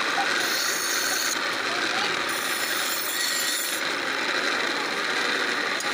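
Steel sickle blade being ground on the spinning grinding wheel of a bicycle-mounted knife-sharpening machine: a continuous rasping grind whose harsher top end comes and goes a few times as the blade is pressed and moved.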